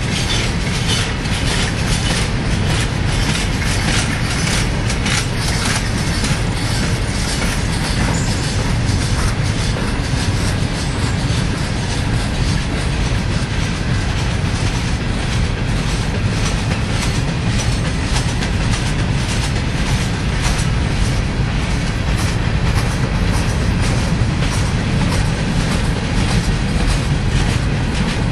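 Freight cars of a Union Pacific manifest train rolling steadily past: a continuous loud rumble of steel wheels on rail, with a running clatter of clicks as the wheels cross the rail joints.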